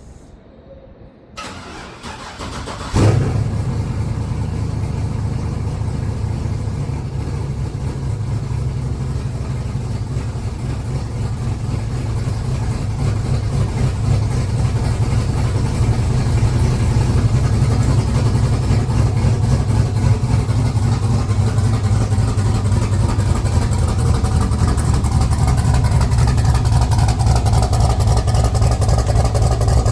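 Pickup truck engine on a cold start: a short stretch of cranking, then it catches with a loud burst about three seconds in and settles into a steady, loud idle with a deep low rumble.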